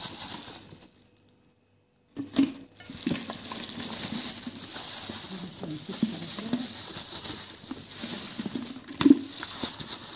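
A gloved hand tossing olives with grated carrot and chopped vegetables in a plastic bowl: a steady wet rustle and the crinkle of the plastic glove, broken by a second of silence about a second in, with a thump near the end.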